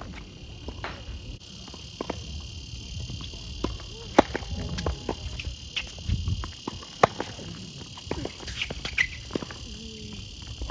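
Tennis racket striking the ball during a serve and rally, with sharp pops about four seconds in and again about seven seconds in and lighter knocks between. A steady high-pitched insect chorus runs underneath.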